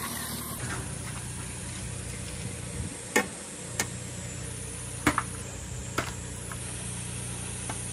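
Glass marbles rolling along a marble-run track with a steady low rumble, and a handful of sharp clicks as marbles knock against each other or the track.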